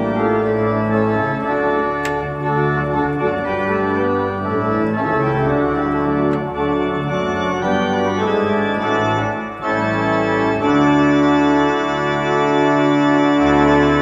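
Church organ playing a piece in full sustained chords that change every second or so, settling near the end on one long held chord.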